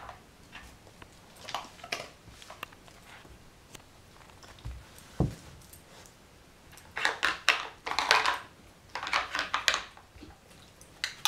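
White plastic cones clattering against the blue plastic board of a Nina Ottosson puzzle toy as a rough collie noses and knocks them about: scattered clicks and rattles, busiest in a stretch from about seven to ten seconds in. There is one dull thump near the middle.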